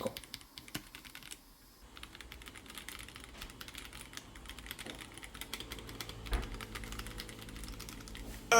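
Typing on an Akko 75% mechanical keyboard with Akko CS Jelly Purple switches: a fast stream of light, quiet key clicks, with a brief pause about one and a half seconds in.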